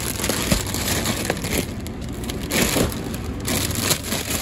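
Plastic bags of frozen broccoli florets crinkling and rustling as they are handled and pulled out of a cardboard display box.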